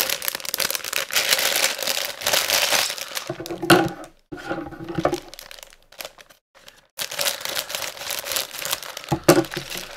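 Plastic bag of Lego pieces crinkling as it is handled and torn open, in two spells with a near-silent pause in the middle.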